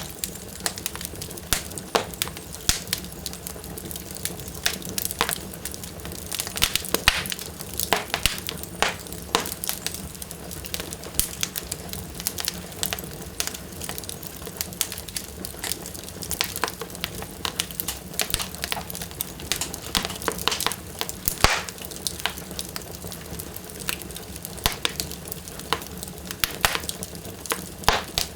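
Wood fire burning in a fireplace, crackling strongly: a steady hiss with frequent sharp pops and snaps throughout.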